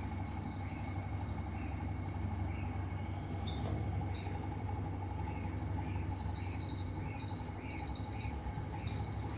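Steady low mechanical hum, like a motor running, throughout. Through the middle come faint, short, high chirps, repeating about twice a second.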